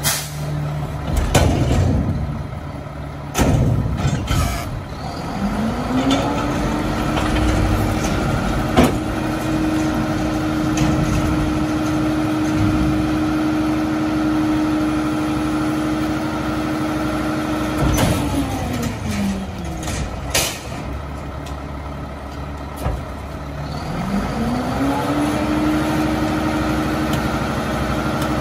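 Mack LR garbage truck's diesel engine revving up to run the rear loader's hydraulics, holding a steady high speed for about twelve seconds, dropping back to idle, then revving up again near the end. Sharp metal clanks and bangs from the dumpster and packer come in the first few seconds and again here and there.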